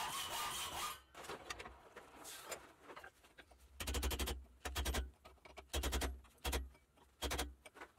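Hacksaw cutting into a forged steel bar to saw out the tenon between the tines. A steady rasping stroke runs at first, then several short, separate strokes with a fine chatter follow in the second half.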